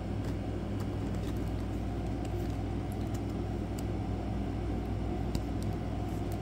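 Steady low background hum with a few faint, light clicks scattered through it.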